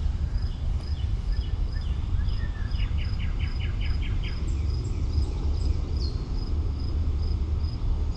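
Outdoor ambience: a bird sings a run of quick chirps in the middle, and an insect gives a steady high pulsing chirp about two to three times a second, over a loud low rumble on the microphone.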